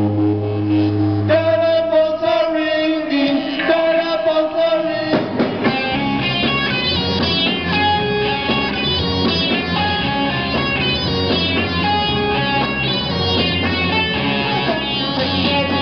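Live rock band playing electric guitars, bass, keyboard and drums. A held low note at the start gives way, about five seconds in, to a steady, repeating guitar riff.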